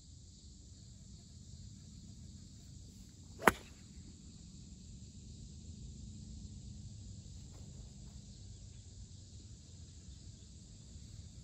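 A golf club strikes a ball off the fairway turf: one sharp crack about three and a half seconds in. A steady chorus of insects carries on underneath.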